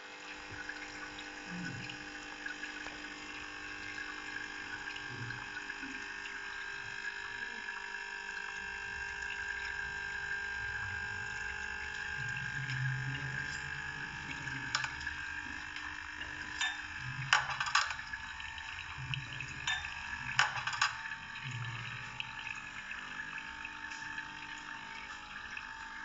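Espresso machine running as a shot pours into a glass: a steady machine hum with liquid running. A few sharp knocks come about two-thirds of the way through.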